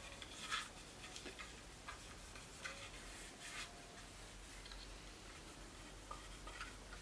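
Faint, irregular rubbing and light ticks of a thumb working wood oil into a shotgun's wooden forend.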